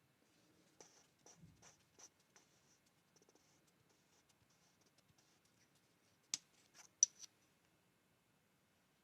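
Hands handling small bicycle bottom bracket parts and packaging: faint scratching and light clicks, then a few sharper clicks or taps about six to seven seconds in.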